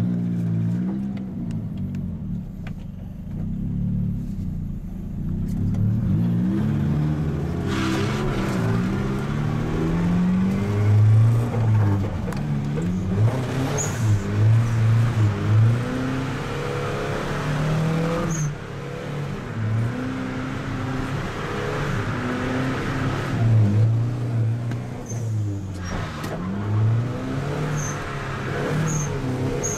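Car engine heard from inside the cabin while it is driven hard on a track, revving up and falling back again and again, with several short noisy bursts.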